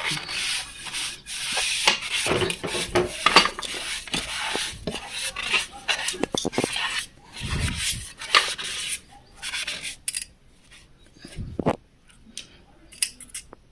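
Rubbing and scraping of the dirty oil reservoir of an industrial sewing machine being scrubbed clean, dense and uneven with many small knocks. About nine seconds in the scrubbing stops, leaving only scattered clicks and taps.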